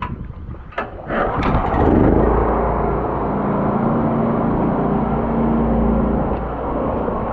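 A few sharp clicks, then the engine of a high-pressure drain jetter starts about a second in, comes up to speed and runs steadily.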